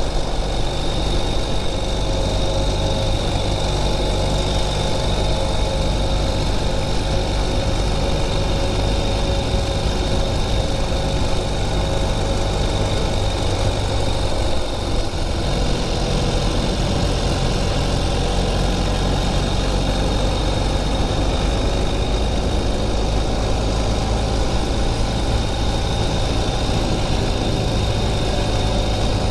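A 2021 Ural Gear Up sidecar motorcycle's air-cooled boxer twin engine running steadily under way, with a brief dip in its sound about halfway through.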